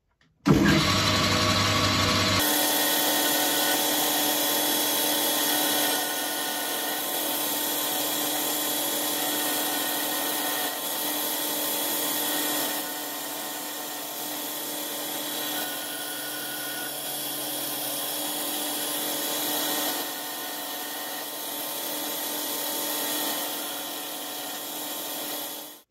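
Boxford BUD lathe running and turning brass bar stock: a steady machine whir with several constant tones from the drive, under the hiss of the tool cutting the brass. The level steps down a few times along the way.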